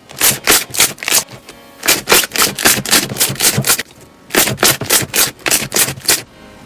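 Slime being handled, giving a run of short, rasping rub sounds at about three to four strokes a second, in three bursts with short pauses between them.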